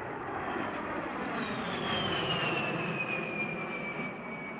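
A-10 Thunderbolt II's twin TF34 turbofan engines passing overhead: a broad jet rush with a high whine that falls steadily in pitch as the aircraft goes by, loudest about halfway through.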